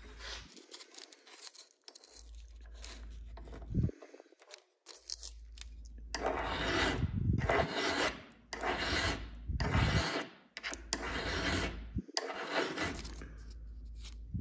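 A hand file scraping across a metal AK magazine catch to take it down for fit. It starts with light scrapes and a knock, then settles into about six long, even filing strokes, each close to a second long.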